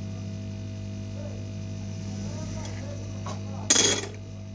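Steady electrical hum with faint voices in the background. Near the end comes a short, loud metallic clatter of the soldering iron and tweezers being set down.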